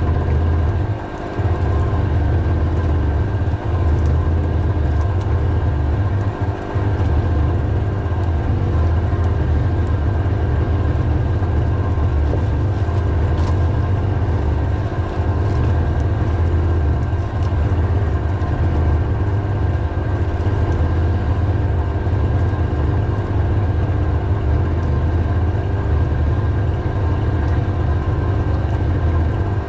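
A small engine running steadily at an even speed, with a strong low hum.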